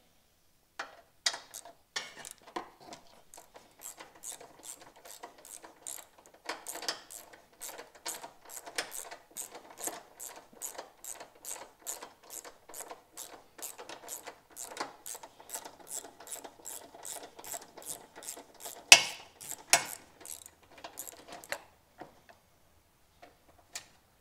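Ratchet wrench clicking at a steady pace, about two to three clicks a second, as a bolt is turned; one louder knock near the end, after which the clicking stops.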